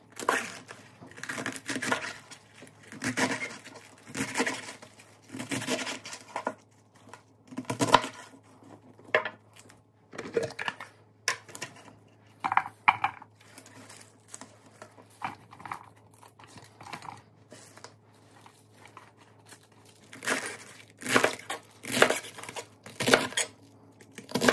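Chef's knife chopping through a head of romaine lettuce on a cutting mat: a crisp crunch with each cut, about one a second. In the middle, leaves are pulled and torn apart by hand with scattered crackles, and the chopping starts again near the end.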